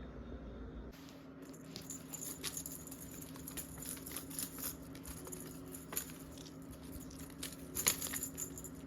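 A cat making small, irregular clicking and rustling sounds, many light ticks close together, a little louder near the end.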